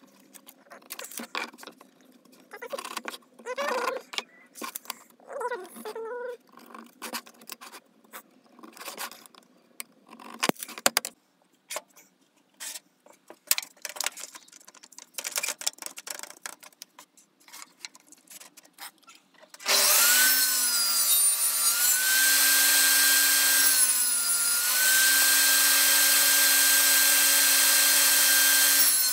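Scattered clicks and scratching as a board is marked out with a pencil and tape measure. About two-thirds of the way in a table saw starts and runs loudly, its pitch dipping briefly three times as the blade cuts small pieces of chipboard.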